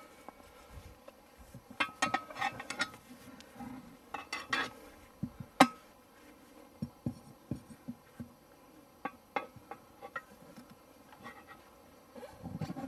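Steel tyre lever clinking and scraping against the wheel rim as the tyre bead is forced over the rim's lip by hand: irregular sharp metallic clicks and knocks, some briefly ringing, with one loud clank about halfway through.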